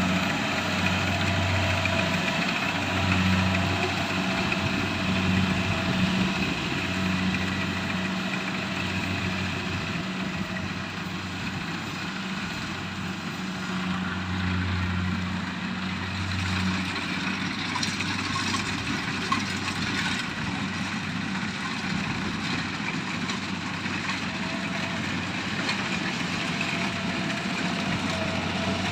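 Rice combine harvester's engine running steadily under work, with a low hum that swells and fades every second or two through the first half.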